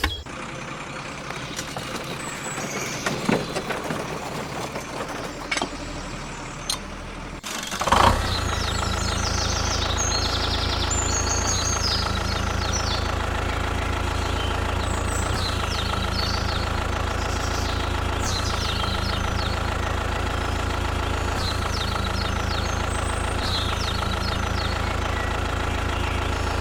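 An engine starts running steadily about eight seconds in, with an even low hum, after a quieter stretch with a few small clicks and knocks.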